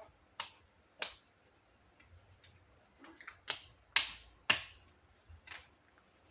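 Sharp clicks and taps of small hard plastic toy pieces being handled and knocked together, about seven at uneven intervals, the loudest a little past the middle.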